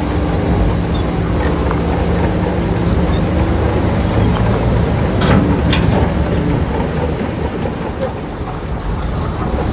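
Heavy diesel engine of earthmoving machinery running steadily under load, with two sharp clanks about five seconds in.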